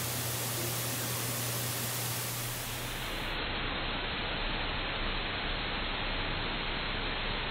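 Steady rushing noise of wind and sea on an outdoor nest-cam microphone, with a low steady hum under it for the first three seconds. About three seconds in, it cuts abruptly to a duller, bass-heavier rush.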